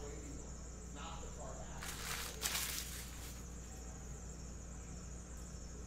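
Stacks of trading cards being handled on a table: a rustling, shuffling noise about 2 seconds in that lasts roughly a second and a half, with a smaller rustle just before. Under it runs a steady faint high-pitched whine and a low hum.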